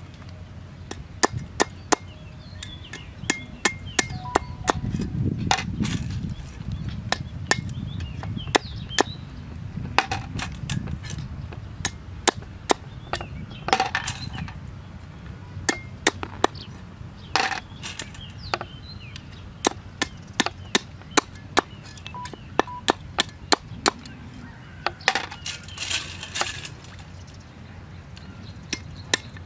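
Meat cleaver chopping on a round wooden cutting board: sharp knocks in irregular runs, sometimes several quick strokes close together, with short pauses between runs.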